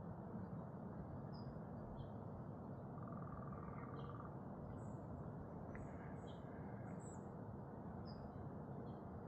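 Small birds chirping: scattered short, high calls over a steady low background hiss, with a brief rapid buzzy trill about three seconds in.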